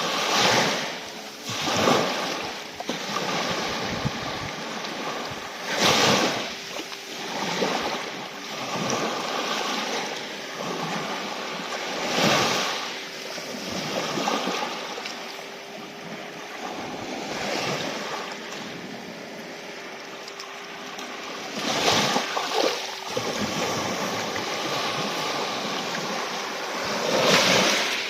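Black Sea waves breaking and washing in, swelling louder every few seconds at an uneven pace, with a faint steady hum underneath.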